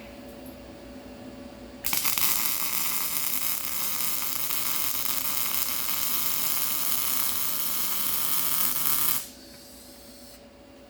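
Small MIG welder with CO2 shielding gas and .030 wire running a weld bead: a loud, steady sizzling that starts abruptly about two seconds in and cuts off about seven seconds later.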